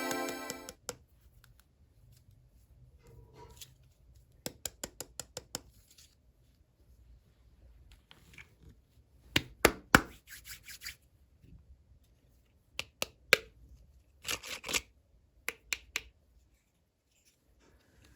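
Background music stops just under a second in. It is followed by scattered sharp clicks and snips of hands working small packaging, scissors-like, some in quick runs of five or six and some single louder clicks.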